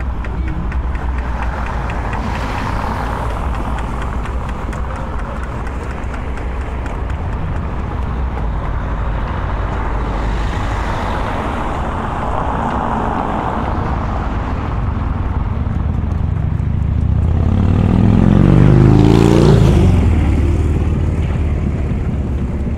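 Street traffic: a steady rumble of cars on the road. There are a couple of gentle swells as vehicles go by, and about three quarters of the way through one vehicle passes close, rising to the loudest point and then fading.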